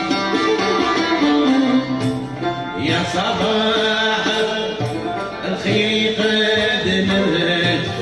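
A live traditional Algerian ensemble playing: bowed violin, plucked banjo and lute lines over a frame drum beating a steady rhythm. A brighter, fuller passage comes in about three seconds in.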